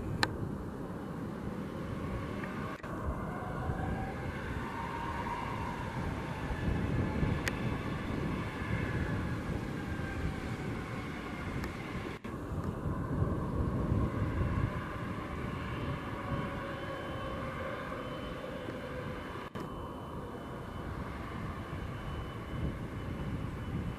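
Aircraft engines running on an airfield: a Cessna 208 Caravan's single turboprop as it taxis and rolls, with a whine that rises early and another that falls later. Near the end the Bombardier Global 7500 business jet's turbofans take over. The sound breaks off abruptly at edit cuts several times.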